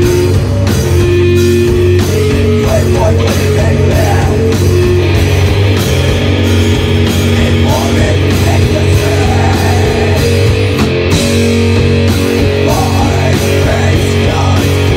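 Metal band playing live and loud: distorted electric guitars holding sustained notes that shift pitch every second or so, over bass and steady drum hits.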